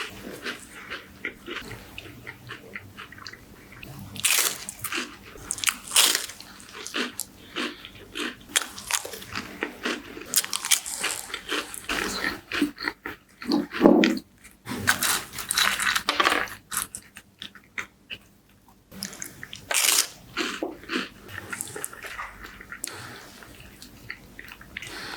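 Close-miked biting and chewing of crispy wafers: sharp, crackling crunches in irregular clusters, the loudest bites about 4, 6, 11, 14 and 20 seconds in, with a short lull between them.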